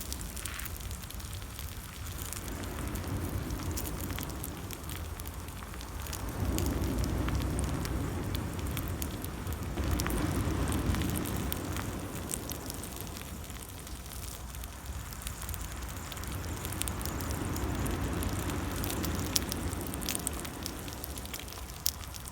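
Wood campfire crackling, with many small sharp pops over a low rumbling noise that swells and fades every few seconds.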